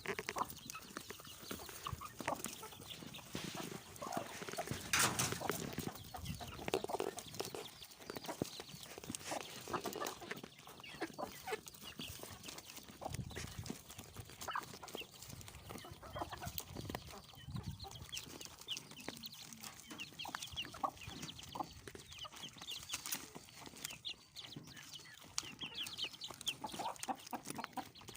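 Chickens clucking and chirping, many short calls over one another, with a few sharp knocks; the loudest comes about five seconds in.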